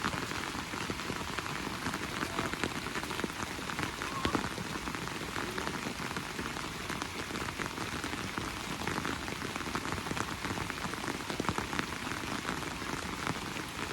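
Steady rain falling, with many close, sharp drop hits throughout.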